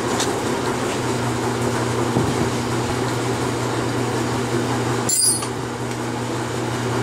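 Steady mechanical hum of a running appliance, with one brief high metallic clink about five seconds in.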